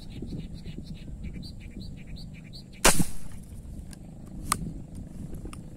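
A hand-held rubber-band spear gun fires once about three seconds in with a single loud snap as the spear goes into the water. Small birds chirp repeatedly before the shot, and a sharp click follows about a second and a half after it.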